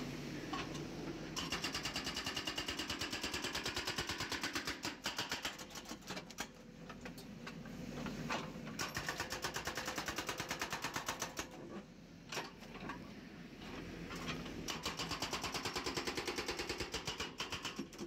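Hydraulic breaker on a JCB 3DX backhoe loader hammering concrete in three bursts of rapid, evenly spaced blows, with the machine's diesel engine running steadily in the pauses between them.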